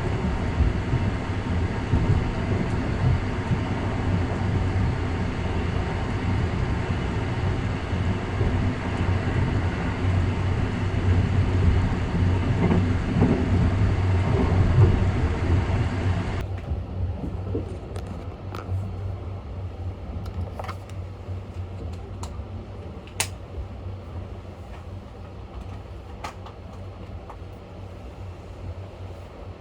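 Running noise of a 285 series sleeper electric train, a steady rumble and hiss. About halfway through it cuts abruptly to a much quieter background with a few scattered sharp clicks.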